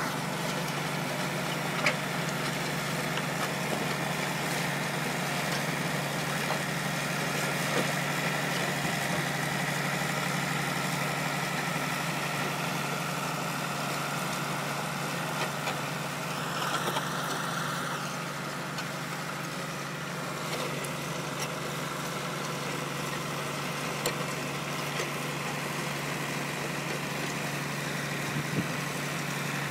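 John Deere 3650 tractor's diesel engine running steadily while pulling a plough, with a few light knocks and clicks over it.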